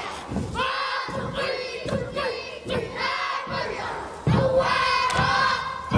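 Children's kapa haka group chanting a haka in unison, the boys shouting the words in short rhythmic phrases with a stamp among them, louder from about four seconds in.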